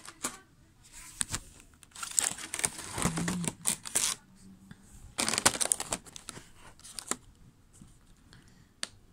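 Clear plastic colored-pencil case being handled: scraping, crinkling plastic noises come in a few short bursts, with scattered clicks.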